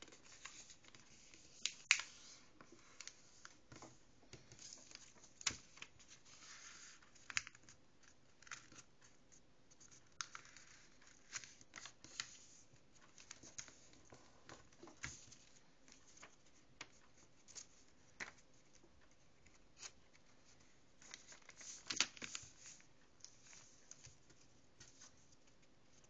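A sheet of paper being folded by hand into an origami airplane: soft rustling and scraping as creases are pressed flat, broken by scattered sharp taps and crinkles at irregular moments.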